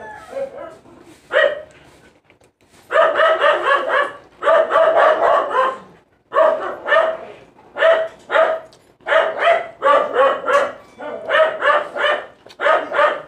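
A dog barking repeatedly: one bark about a second in, then runs of quick barks, several a second, from about three seconds in.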